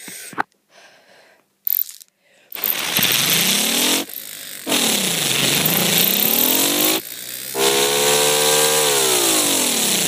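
Miniature Thunderbolt 1000T siren wailing, starting about two and a half seconds in with a rising pitch over a loud hiss. The sound breaks off briefly twice. Between the breaks the pitch dips and climbs again, and near the end it winds slowly down.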